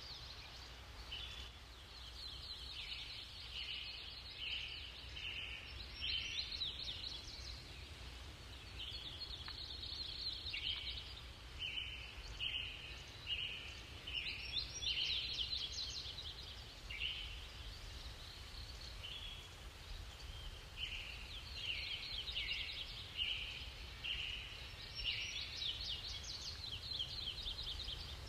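Songbirds singing: phrases of short, quickly repeated chirping notes that come and go every few seconds, over a faint low steady rumble.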